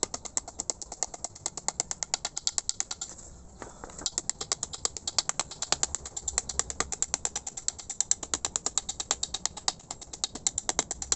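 Rapid, even light taps, about six a second, on a sheet of gasket material laid over an air compressor head, marking out the shape of a new head gasket. The tapping stops briefly about three seconds in, then carries on.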